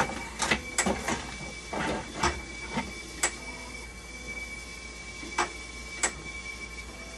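Sharp clicks and knocks of gloved hands handling plastic and metal parts inside a dialysis machine, a quick cluster in the first few seconds and two more later. Under them a steady thin high tone and a low hum come from the running machine.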